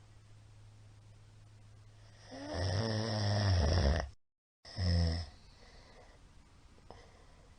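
A man snoring loudly in his sleep after a night of drinking. There is one long buzzing snore about two and a half seconds in, then a short second snore about a second later, over a faint steady low hum.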